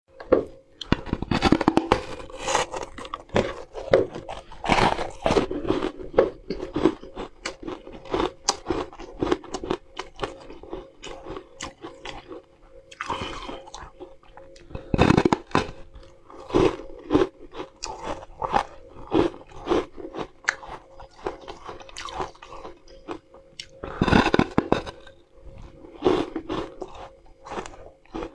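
Close-miked eating: a person bites into a large, crisp, flat sheet of food and chews it. Several loud crunching bites stand out, with many smaller crackling crunches of chewing between them.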